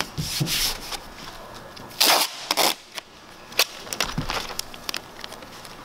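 Masking tape pulled off its roll in two short ripping bursts about two seconds in, with rustles and scattered ticks as the tape is handled and pressed down.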